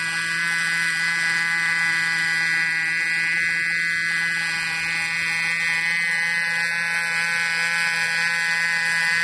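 Small two-stroke gasoline engine of a radio-controlled helicopter running steadily with a high, even buzz at a constant pitch while the helicopter sits on the ground.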